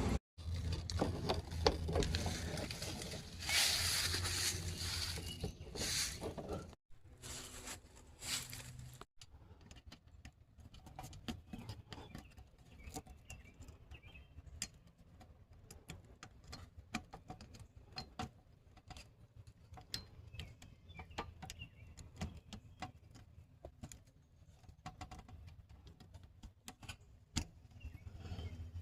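Scattered light clicks and taps from hand work on electrical parts and tools. The first few seconds hold a low hum and louder noise, cut off abruptly more than once.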